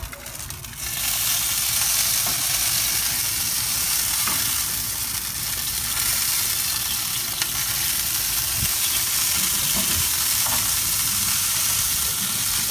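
Sausage-wrapped stuffed jalapeños sizzling steadily on a smoker grate as fat renders. The sizzle swells about a second in, with a few light clicks of metal tongs turning them.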